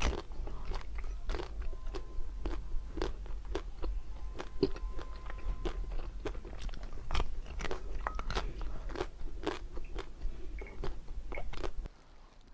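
Close-miked eating of ice cream: crisp crunching bites and chewing, with sharp irregular cracks two or three times a second. The crunching stops about twelve seconds in.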